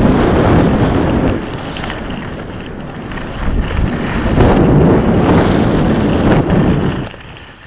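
Wind rushing over the microphone of a camera carried by a skier going downhill. It comes in two loud surges with a quieter spell between them and falls away suddenly near the end.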